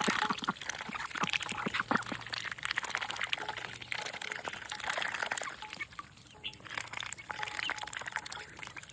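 Pekin ducks dabbling for peas in water, their bills rapidly clicking and slurping with a wet splashing patter that eases briefly about six seconds in.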